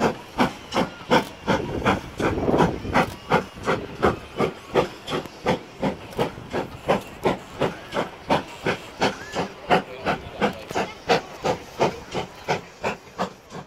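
Steam locomotive working a train, its exhaust beating out a steady chuff about three times a second, fading near the end.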